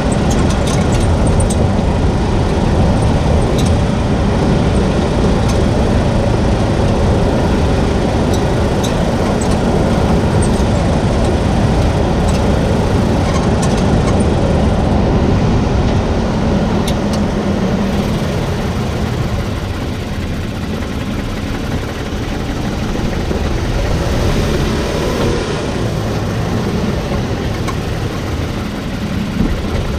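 2022 Toyota Tacoma driving, with steady road and engine noise. Short, faint, high-pitched ticks or squeaks come now and then in the first half.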